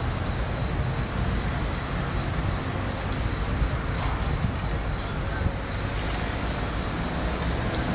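Diesel-electric locomotive (CNR CKD8G) approaching from a distance, its engine a steady low rumble, with insects trilling continuously in a high, pulsing tone.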